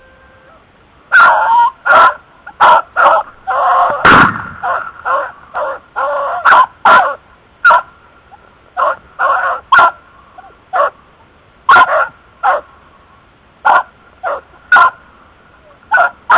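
Hunting beagles baying in the brush: loud, short, repeated bays starting about a second in, some overlapping and some drawn out, keeping on at irregular intervals. This is the cry hounds give while working a rabbit's scent.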